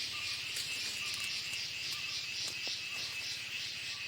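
Chorus of insects calling, a high shrill pulsing about three times a second over a thin, steady whine.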